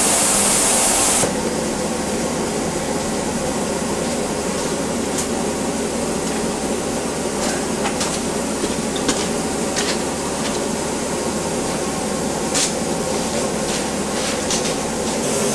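Steam hissing from a standing narrow-gauge steam locomotive: a loud, bright hiss that cuts off about a second in, then a steadier, softer hiss with a few faint clicks.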